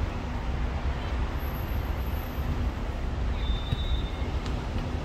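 Steady low outdoor rumble, with a short faint high tone about three and a half seconds in.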